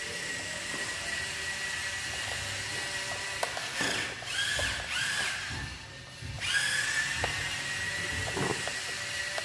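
Small electric motors of Playmobil radio-control toy cars whining. The pitch swings up and down a few times midway as the throttle is worked, drops out briefly, then winds back up. A few light clicks and knocks sound under it.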